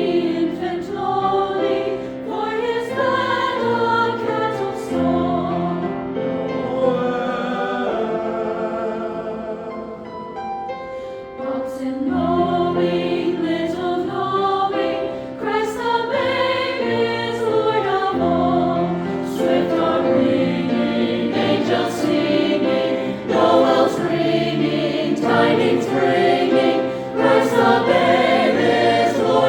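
A choir singing, with the sound dropping softer about ten seconds in and then swelling again.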